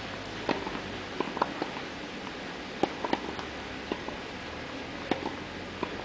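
Tennis balls being struck by rackets and bouncing on clay courts: about a dozen sharp pops at irregular intervals over a steady outdoor background hiss.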